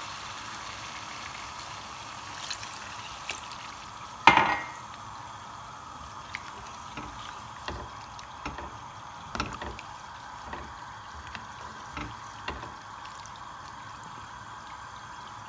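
A spatula stirring lamb and potato pieces in water in a nonstick pan: wet stirring with scattered light knocks of the spatula against the pan, and one louder knock about four seconds in.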